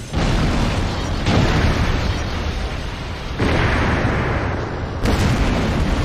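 Sound effects of a burning airship crashing and exploding: a run of heavy blasts, four sudden hits about one to two seconds apart, each trailing into a deep, continuous rumble.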